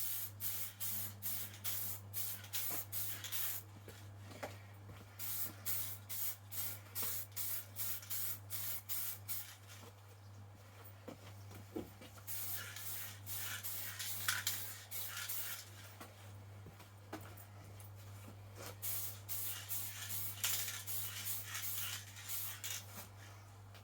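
Aerosol can of general-purpose acrylic spray paint hissing in many short, quick bursts, laying on light coats. The bursts come in runs with a few quieter pauses near the middle, over a steady low hum.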